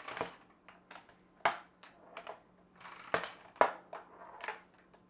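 Small balls from a wooden toy catapult game clicking and bouncing on the wooden game board and dropping into its tray, with the catapult being worked by hand: a string of about ten sharp, light taps at uneven spacing, the loudest two about three seconds in.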